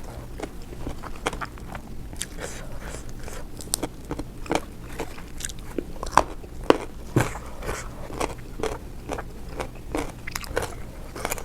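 A person biting and chewing crunchy food, a run of small irregular crunches with a few louder bites in the middle.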